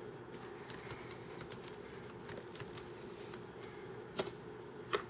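Light clicks of a computer keyboard and mouse as a command is selected, copied and pasted, a scatter of quick clicks with two louder ones about four seconds in and near the end, over a faint steady hum.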